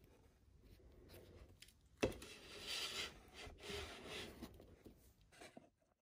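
Hands tearing apart a fruit loaf: the crust crackles and the crumb rips, with a sharp crack about two seconds in followed by a few seconds of crackling and rustling that stops abruptly near the end.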